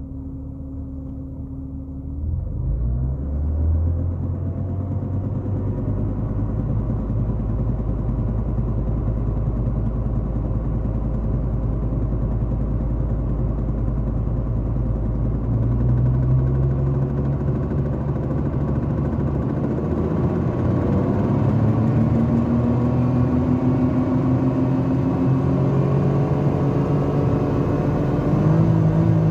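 BMW E36 running, heard from inside the cabin, its engine note stepping up a few seconds in and rising slowly in pitch over the second half. This is recorded to catch an unexplained knock that is heard only in the cabin.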